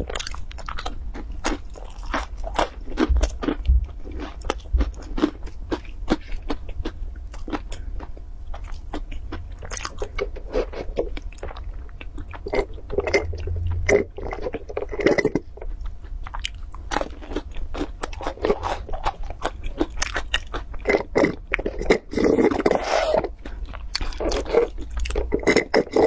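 Close-miked crunching and chewing of a flaky pastry, with many small crisp crackles. Later come sips and swallows of a drink from a plastic cup.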